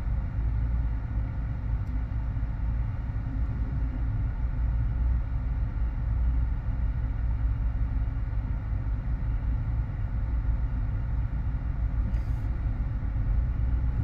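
Steady low rumble of a car heard from inside its cabin, with the engine running in slow traffic.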